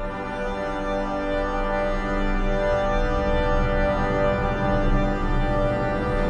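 Opening music: a held chord of many sustained notes on an organ-like keyboard, slowly swelling in loudness.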